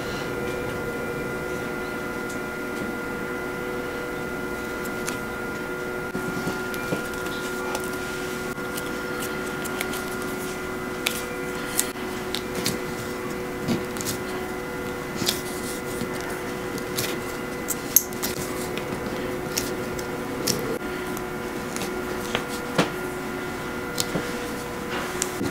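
A steady machine hum holding a few constant tones, with scattered small clicks and taps from hands handling a star piping nozzle and pressing dough on a wooden cutting board.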